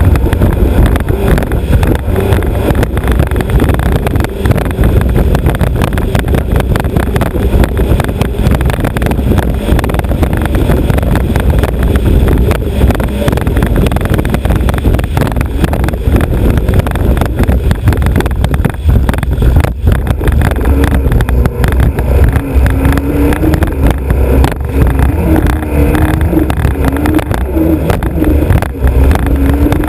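Alfa Romeo Autodelta 2.5 V6 of a vintage three-point racing hydroplane running hard at speed, a loud, steady din mixed with rushing water and wind. Its note wavers up and down over the last third.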